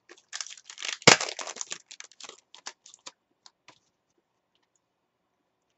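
Trading cards being handled in the hands: a quick run of flicks, slides and clicks of card stock against card stock, with a sharper knock about a second in, thinning to a few clicks and then stopping.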